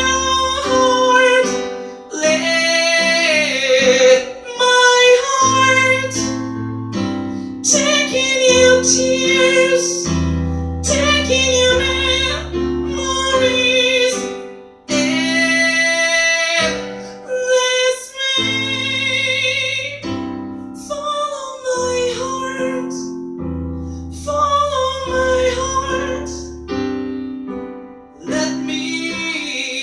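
Female singer holding long sung notes over piano accompaniment in a slow ballad.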